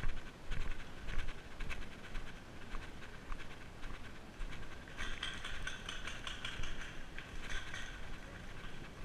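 Footsteps crunching through dry leaf litter and pine needles, about two steps a second, with a denser stretch of crunching and rustling from about five seconds in.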